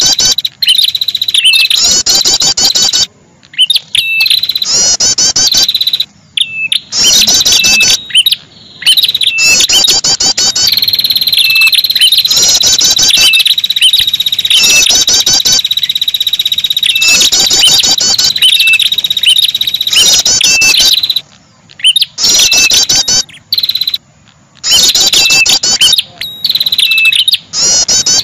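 Ashy tailorbird (prenjak kepala merah) lure recording: loud, rapid repeated high calls in bursts over a steady high-pitched buzz, broken several times by abrupt short drop-outs.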